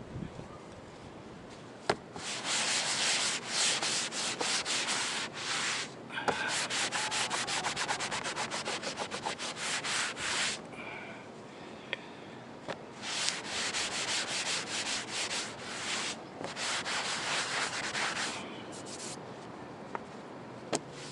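Coaxial antenna cable being fed back through an opening, its jacket rubbing and scraping in rapid strokes. The pulls come in bursts of a few seconds, with short pauses between them.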